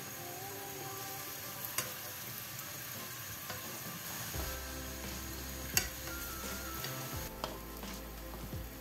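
Lavash börek rolls frying in hot oil in a nonstick pan, a steady sizzle. A few sharp clicks come from metal forks touching the pan as the rolls are turned.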